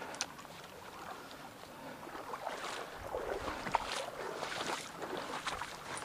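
Water sloshing and splashing as a person wades through a shallow, rippling stream, with irregular splashes from about two seconds in over the running current.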